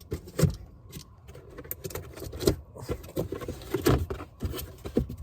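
Irregular knocks, clicks and rattles of loudspeakers being picked up and handled.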